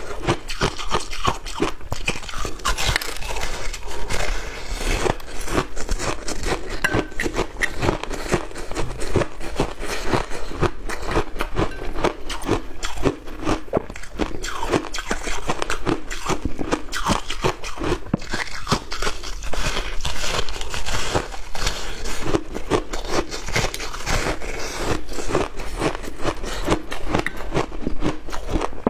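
A person biting and chewing a block of frosted ice dipped in cola, making dense, rapid crunches.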